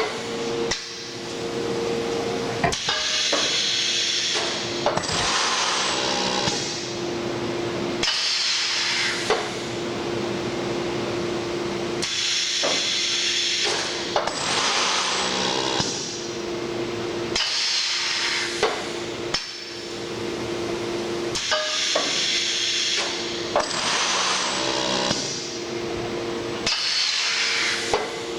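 Rebuilt Sencorp 2500 roll-fed thermoformer running through its production cycle: air cylinders and valves hissing in bursts, with sharp clicks and clunks of the press, the pattern repeating about every nine to ten seconds over a steady hum.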